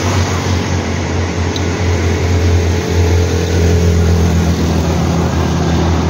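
Steady road traffic passing close by: vehicle engines with a strong low hum and tyre noise, a second engine note joining after about three seconds.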